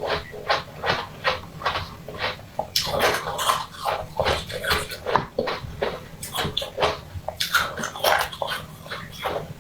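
Close-miked chewing and wet mouth sounds of someone eating: quick, irregular smacks and crunches, several a second.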